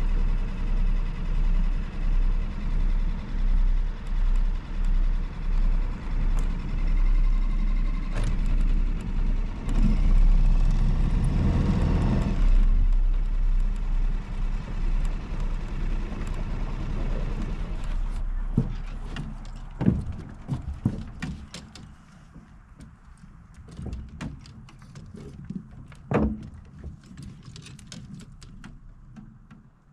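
A small boat's outboard motor running at low speed, with a steady low hum that swells louder for a couple of seconds about a third of the way in as the boat is manoeuvred. It then dies away, leaving scattered knocks and clunks in the boat.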